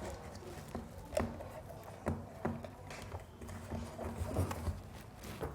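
Scattered light clicks and knocks of hands handling wires and a speaker on a home theater amplifier board while the speaker is being connected, over a faint steady low hum.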